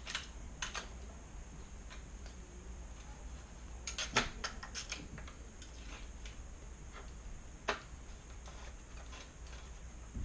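Scattered light clicks and taps of a stiff dropper-post cable and parts being handled against a carbon bike frame, with a quick run of clicks about four seconds in.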